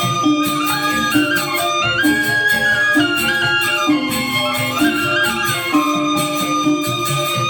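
Balinese gamelan angklung playing a traditional piece: metal-keyed gong-chimes of a four-tone reong and metallophones sounding a melody that moves up and down in short steps over a steady pulse.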